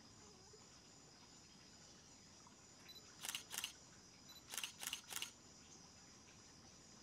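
Faint, steady high-pitched insect drone in the background. Around the middle, a camera shutter clicks twice, then, after a short pause, four more times in quick succession.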